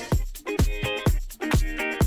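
Background music with a steady dance beat: a deep kick drum about twice a second under held chords and light high-pitched percussion.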